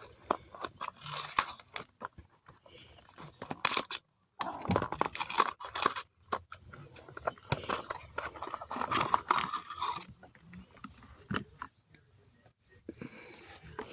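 Toy figures and their packaging being handled and set in place: irregular clicks and rustling scrapes in bursts, with a short pause about four seconds in and quieter handling near the end.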